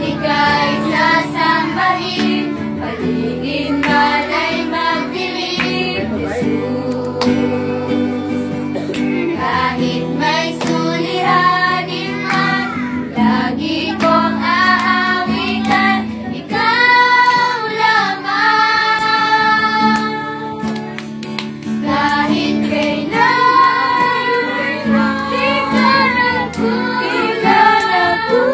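A group of children singing a Tagalog Christian worship song together, to a strummed acoustic guitar.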